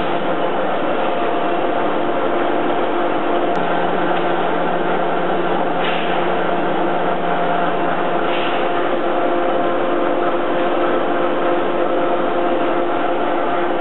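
SARO SPA 8 x 1500 centre lathe running under power, its motor and headstock gearing giving a steady hum with several constant whining tones. Brief scratchy noises come about six and eight and a half seconds in.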